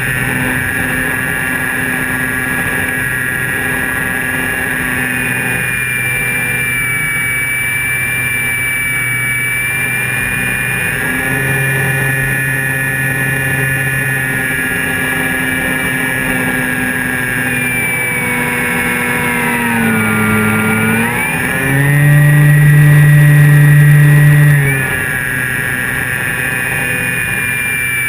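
Electric motor and propeller of a Flyzone Calypso radio-controlled plane running in flight, heard close from a camera under the wing: a steady whine that dips in pitch about two-thirds of the way in, then throttles up louder for about three seconds before settling back.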